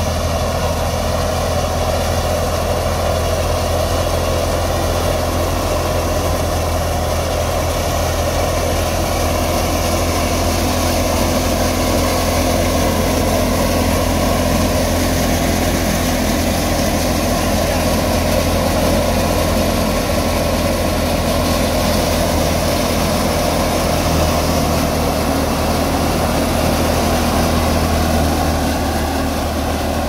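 Tractor-driven wheat thresher running steadily at working speed, powered by a Massey Ferguson 385's diesel engine: a low, even engine drone under the machine's steady running noise.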